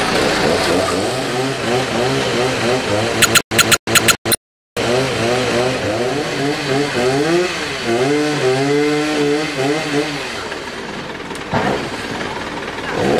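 Chainsaw running, its pitch swinging up and down as it is throttled. The sound drops out several times about three to five seconds in.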